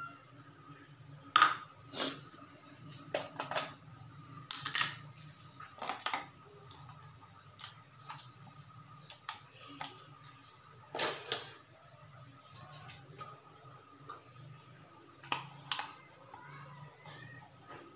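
Scattered sharp clicks, knocks and clinks at irregular intervals as a plastic gochujang tub is opened and handled and a metal spoon scoops the paste, over a faint steady hum.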